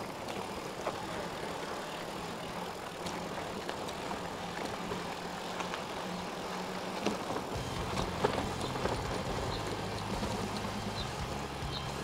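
Bicycle riding along a rough track: steady tyre and wind noise with small clicks and rattles from the bike. A low steady hum joins a little past halfway.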